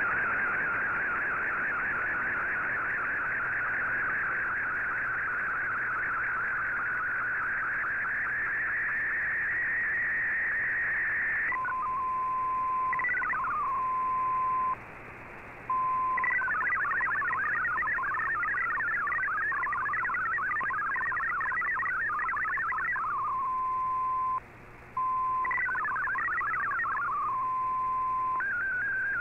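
Shortwave Radiogram digital-mode broadcast received on 15770 kHz through an Icom IC-R8600: for the first ten or so seconds the warbling scan-line tones of an SSTV picture, with a slowly rising pitch. Then a steady single tone alternating with bursts of rapidly hopping MFSK data tones, broken by two brief silences, and an SSTV warble starts again near the end.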